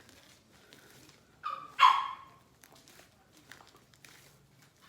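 A dog barks twice in quick succession about a second and a half in, the second bark louder.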